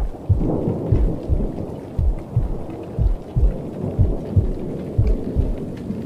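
Thunderstorm: steady rain with rumbling thunder, over a run of short low thumps about two to three a second.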